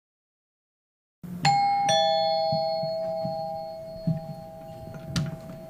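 Two-tone doorbell chime: a higher 'ding' about a second and a half in, then a lower 'dong' half a second later, both ringing on and fading slowly over several seconds. A few soft thumps follow near the end.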